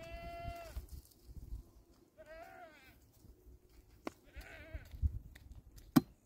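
Small livestock bleating three times: a short steady bleat at the start, then two wavering, quavering bleats about two and four seconds in. Two sharp clicks, the louder near the end, sound between them.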